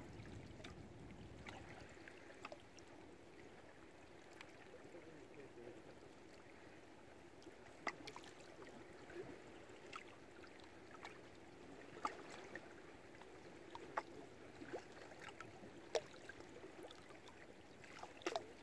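Faint water lapping and trickling around moored boats, with small irregular clicks and knocks every second or two.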